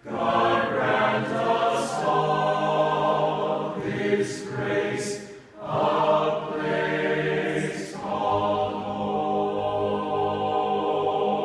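Mixed-voice vocal ensemble singing a cappella in sustained close-harmony chords, with a short break for breath about five and a half seconds in.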